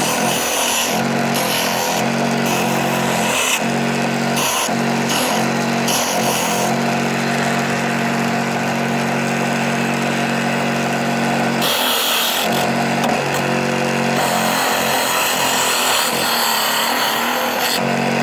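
Small electric sander of a 4-in-1 mini workshop running steadily while a square of wood is sanded on it, the rough sanding hiss rising and dropping as the piece is pressed on and lifted off.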